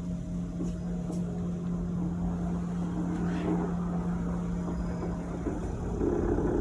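Panasonic NR-B170TV refrigerator compressor running with a steady low hum, which drops out about five seconds in. Near the end an intermittent groaning scrape starts, like a chair being dragged: the abnormal noise of a defective new unit.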